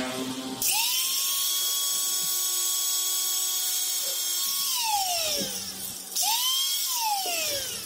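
Small electric angle grinder with a thin disc switched on, whining up to speed and running steadily for about four seconds while trimming a piece of fibre insulating board, then winding down. It is started again twice more in short bursts, each spinning up and falling away.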